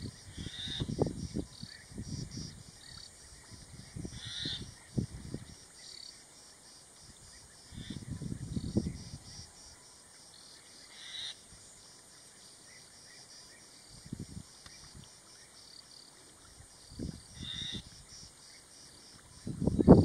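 Outdoor ambience: irregular low rumbling gusts, with faint high chirping calls repeating throughout and a few louder short bird-like calls.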